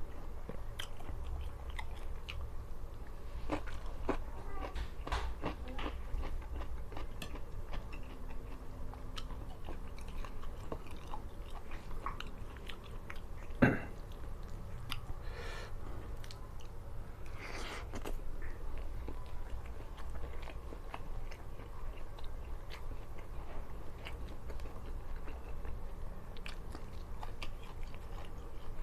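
A person chewing and biting food with wet mouth clicks and some crunchy bites. A single sharp click about halfway through is the loudest sound.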